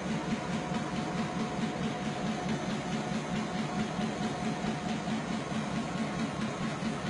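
Railway locomotive engine running steadily, with a regular low throb and a faint steady whine above it.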